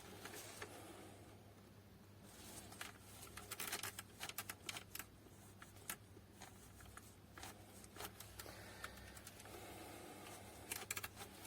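Faint, scattered clicks and short rattles of plastic printer parts being handled, over a steady low hum.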